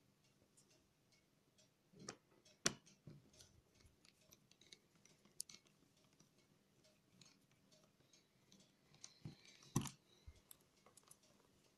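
Faint handling noise from hands working over a laptop's bottom case: scattered light clicks and taps, with the sharpest knocks about two seconds in and again near the end.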